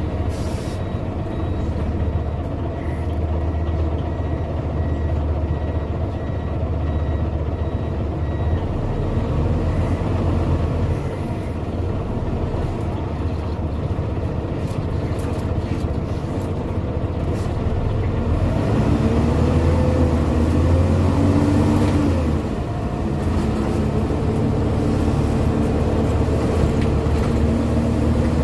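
Scania OmniDekka double-decker bus on the move, heard from the upper deck, its diesel engine and drivetrain running steadily. Past the middle the pitch climbs, drops back sharply with a gear change, then builds again toward the end.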